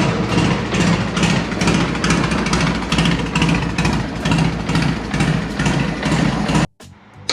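Harley-Davidson Sportster air-cooled V-twin engine idling with an even, pulsing rhythm as it warms up before an oil change. It cuts off suddenly near the end.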